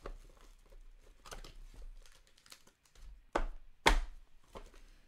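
Hands crinkling and tearing the cellophane wrap on a Panini Elements football card box, with two sharp smacks on the box about three and a half seconds in, the second the loudest.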